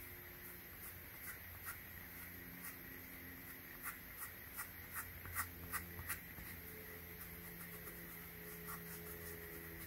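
Cloth rubbing over the foam of a Yeezy Foam Runner shoe, buffing in toothpaste: a faint series of short scratchy strokes, a couple a second, that thin out after about six seconds.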